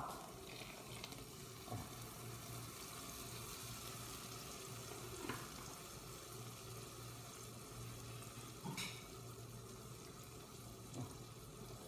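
Onions and spices frying in hot oil in a pot, a faint steady sizzle, with a few light knocks of a spoon about 2, 5, 9 and 11 seconds in.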